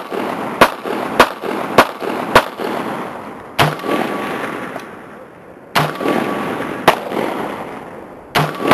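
Rifle shots at an outdoor shooting range: a quick string of about five sharp cracks roughly half a second apart, then four more spaced a second or two apart, each followed by a decaying echo.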